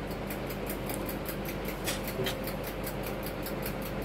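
Small metal pendants and their plastic packaging handled on a desk, giving a few light clicks about halfway through, over a steady room hum with a fast, faint regular ticking.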